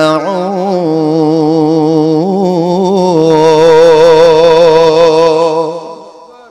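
A man's voice chanting one long, drawn-out melodic note of Quranic recitation, the held vowel of 'mā' in 'walakum fīhā mā tadda'ūn'. The pitch wavers and turns as it is held, rises a little about two seconds in, and fades away near the end.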